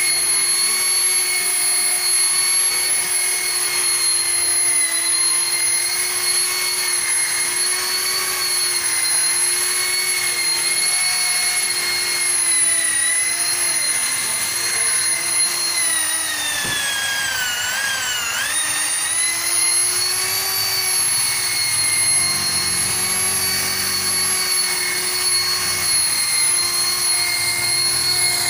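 Electric rotary car polisher running with a steady high whine while its pad buffs painted car bodywork. A little over halfway through, the whine dips in pitch for about a second and comes back up.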